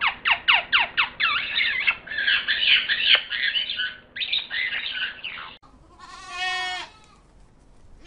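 Blue-and-yellow macaw squawking: a quick series of short falling calls, then a harsh, dense run of squawks for about four seconds. Near the end comes a single goat bleat lasting about a second.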